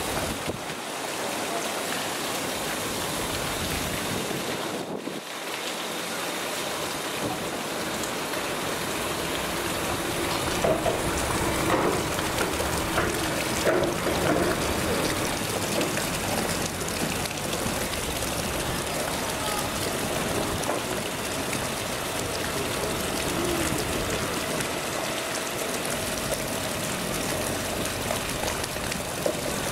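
Steady rushing noise of strong wind outdoors, with a few brief knocks about halfway through.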